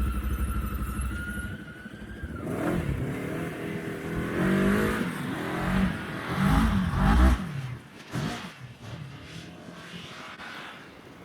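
Side-by-side UTV engine running steadily with a high whine, then revving up and down again and again for about five seconds as it drives through the creek crossing, before easing off and running quieter near the end.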